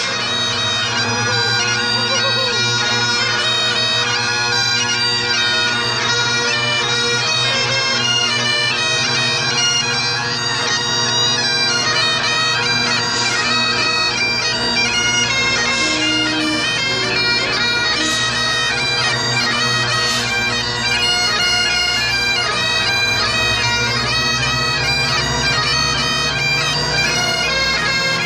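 Bagpipes playing a tune over their steady drones.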